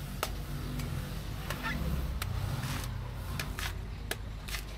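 A large knife chopping into the husk of a young green coconut: a run of sharp strikes, roughly two a second, over the low hum of street traffic.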